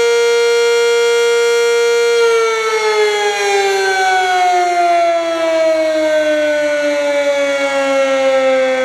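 Fire company's house siren sounding a test: a loud, steady tone that, about two seconds in, begins to slide slowly and evenly down in pitch.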